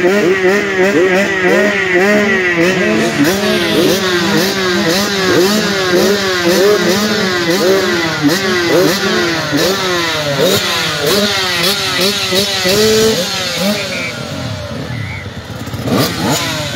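Several motocross bikes running side by side at the start line, their riders blipping the throttles so that the engines rev up and down over one another without pause. The revving eases off briefly near the end.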